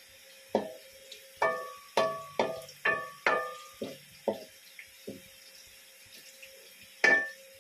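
A run of short, ringing, pitched clinks, about two a second, each fading quickly, then a few scattered ones.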